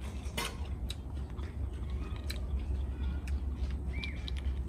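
Small sticky clicks and soft tearing as ripe J33 jackfruit flesh is pulled by hand from its fibres, over a steady low hum. A short high squeak comes about four seconds in.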